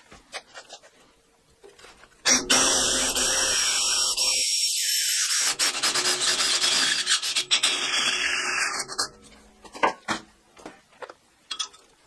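Drill running a step drill bit into the wall of a steel square tube, cutting a hole out to 10 mm: a steady motor whine over the grinding of the cut for about seven seconds. It stops near the end, followed by a few light clicks and taps.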